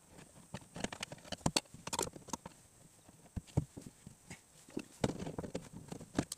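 Irregular clicks, taps and knocks of a hand working inside a Volvo S80 door at the window regulator, fitting and seating the regulator's slide in its rail, with a short rattling patch about five seconds in.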